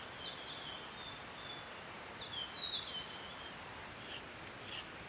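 Bird song: two runs of short whistled notes that slide down in pitch, over a steady background hiss.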